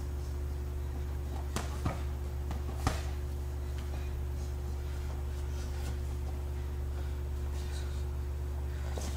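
Boxing sparring in gloves: a few short, sharp smacks of contact, the loudest about three seconds in, over a steady low hum.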